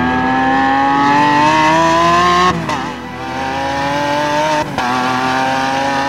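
Lamborghini Countach LPI 800-4's V12 engine accelerating hard, its pitch climbing steadily. Two upshifts, about two and a half seconds in and again shortly before five seconds, each drop the pitch before it climbs again.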